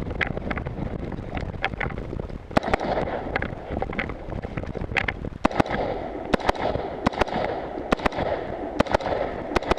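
Rifle shots fired in quick, irregular strings by a competitor working through a stage of targets, with a rustling haze of wind and movement on the microphone between shots.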